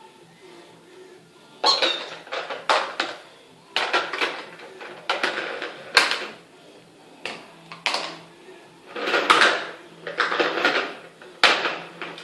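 Rubber squeaky toy squeezed over and over: about a dozen short squeaks at irregular intervals.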